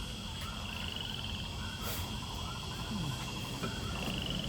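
Outdoor ambience of trilling and chirping animal calls over a steady high drone, with a low rumble underneath and a single sharp click about two seconds in.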